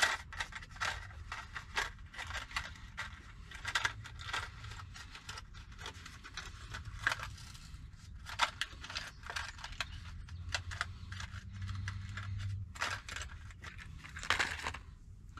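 Plastic packaging of automotive blade fuses crinkling and small plastic fuses clicking as the packet is picked open and a fuse is taken out: a run of quick, irregular clicks and crackles.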